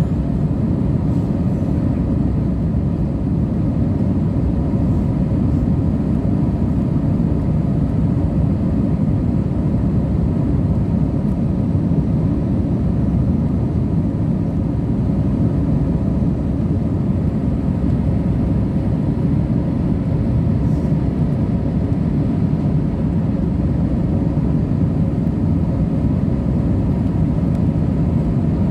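Steady cabin noise of a jet airliner in flight, heard from a window seat: an even low rush of airflow and engines, with faint steady hums above it.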